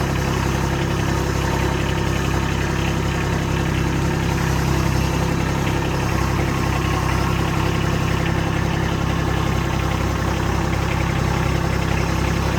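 Kubota B2301 compact tractor's three-cylinder diesel engine running at a steady idle, with an even low drone throughout.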